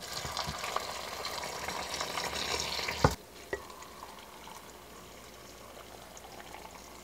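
Hot vinegar-and-water pickling brine poured from a saucepan over whole peppers in a glass baking dish, making a steady splashing pour. About three seconds in there is a single knock, and the pour goes on more quietly into a glass jar of sliced red onions.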